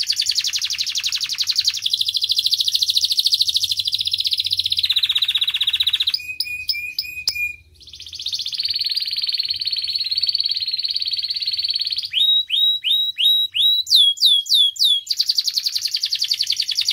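Red-factor canary singing: long, fast trilled rolls, broken about six seconds in by a few separate notes and a brief pause. Near the end comes a run of sharp down-slurred whistles, several a second, before the rapid trill returns.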